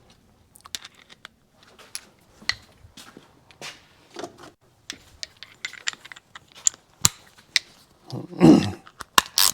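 Hand tools and small metal engine parts being handled: scattered light metallic clicks, taps and clinks, with a louder, longer clatter about eight and a half seconds in.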